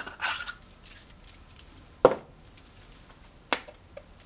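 Spice containers and a measuring spoon being handled over a small saucepan: a brief rattle at the start, a solid knock about two seconds in, and a sharper click about a second and a half later.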